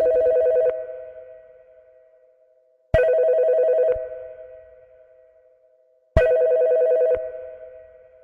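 Telephone bell ringing three times, about three seconds apart; each ring is a rapid trill of about a second that then fades away.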